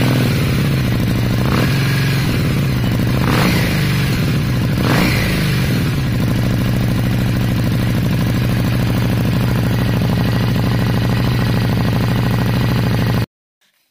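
Harley-Davidson Street 750's V-twin, breathing through a Screamin' Eagle aftermarket exhaust, running loudly just after starting. It is revved briefly three times in the first five seconds, then idles steadily until it stops abruptly near the end.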